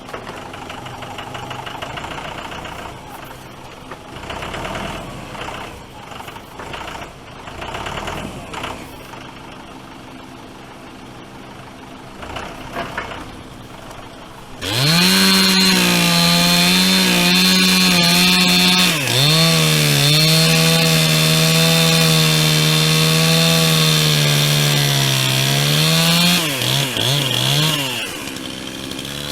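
Two-stroke chainsaw. For about the first half it runs quieter, then it suddenly opens to full throttle and cuts into the white oak. Its pitch sags whenever it bogs under load, several times near the end.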